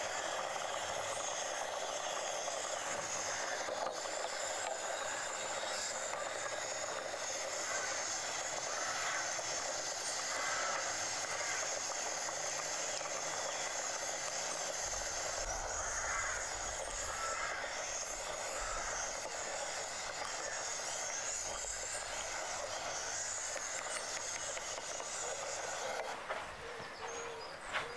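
Steady hiss of a propane gas burner flame under a pot of soup. Near the end the hiss drops and a few sharp clicks come in.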